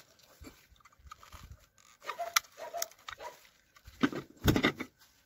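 Gloved hands handling and fitting together painted toy-truck parts: scattered clicks, knocks and rubbing, with a sharp click about halfway through and the loudest clatter near the end.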